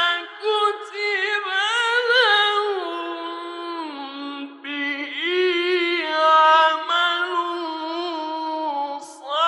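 A male reciter's solo voice in melodic, ornamented (mujawwad) Quran recitation, drawing out long, gliding, embellished phrases with no accompaniment. The phrases break off briefly a little over four seconds in and again near the end.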